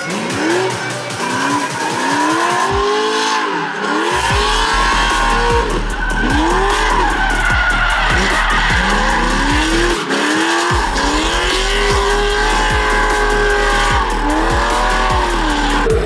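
Drift car engine revving up and down again and again, with tires squealing as the car slides, over electronic music with a steady beat.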